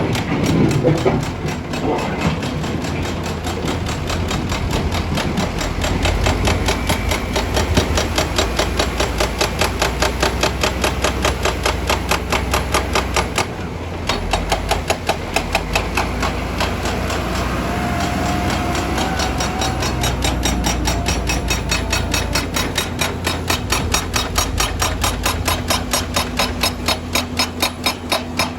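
Excavator-mounted hydraulic breaker hammering rock in a rapid, even stream of blows over the steady low hum of the excavator's diesel engine, stopping briefly about halfway through.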